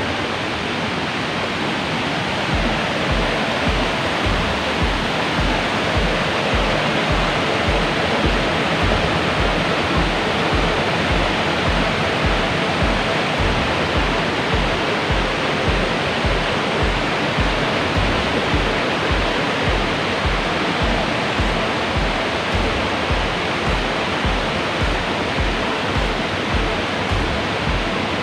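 Steady rushing water of a waterfall, with background music over it whose deep, steady beat of about two pulses a second comes in a couple of seconds in.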